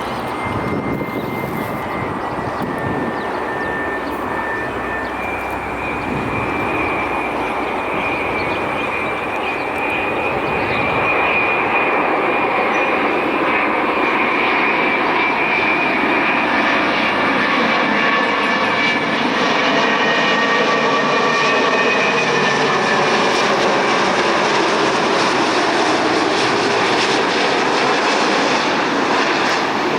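Jet airliner on landing approach passing over, its engines a steady rushing noise with a high whine, growing louder about ten seconds in.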